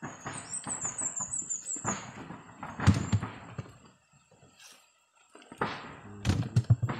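Irregular knocks and bumps with a brief run of high squeaks, from a cow's wooden yoke and cart shafts being handled while the cart is hitched. One sharp knock comes about three seconds in.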